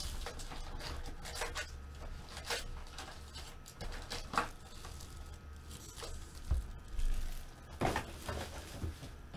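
Foil-wrapped trading-card packs and a cardboard box being handled on a table: scattered rustles, crinkles and light taps.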